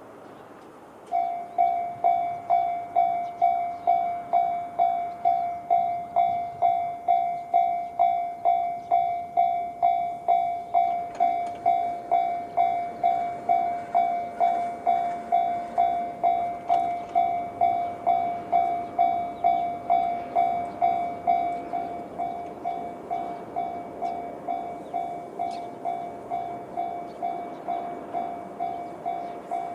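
Japanese railway level crossing's electronic warning bell, the JR standard tone, starts about a second in and rings steadily at about two strikes a second. About 21 seconds in it drops to a lower volume and keeps ringing.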